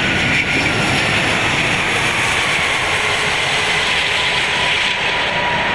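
Airbus A380 at touchdown and the start of its landing roll, heard from the flight deck: a steady, loud rushing of airflow and engine noise with no distinct thumps.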